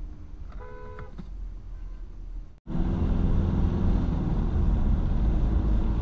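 A car horn toots briefly about half a second in over low in-car road noise. After a sudden cut, louder steady engine and tyre noise is heard from inside a car driving on a wet road in the rain.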